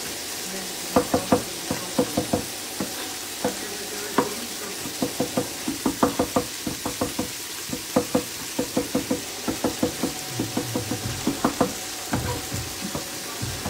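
Chef's knife chopping fresh parsley on a wooden cutting board: quick, irregular knocks of the blade hitting the board, in short runs. A steady sizzle from the pan of pasta cooking runs underneath.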